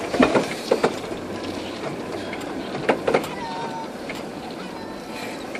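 Steady road and running noise heard from inside a vehicle driving on a rough dirt road, broken by a few short, sharp sounds.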